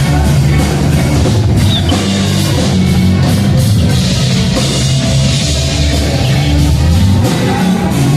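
Rock music with drums, bass and distorted guitar, played loud and steady through Tannoy Gold 8 studio monitors.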